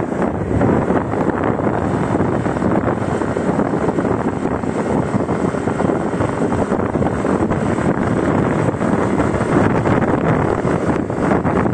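Wind buffeting the microphone of a phone carried on a moving motorcycle, a steady rushing noise mixed with the motorcycle's engine and tyre noise.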